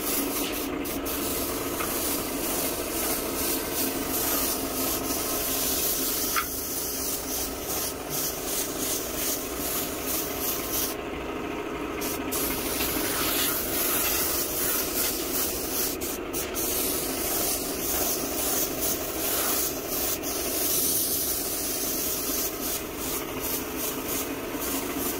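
Compressed-air spray gun hissing steadily as it sprays paint.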